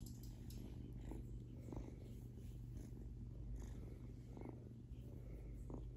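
A three-week-old kitten purring steadily and faintly, with a few light rustles and soft clicks as it plays with a hand.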